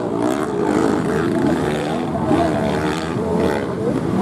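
Enduro dirt bike engine revving, its pitch rising and falling repeatedly as the throttle is worked on a steep dirt climb.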